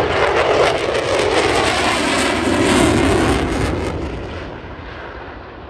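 Jet engine noise of an F-16 Fighting Falcon in a flying display, loud at first and then fading over the last couple of seconds as the jet banks away.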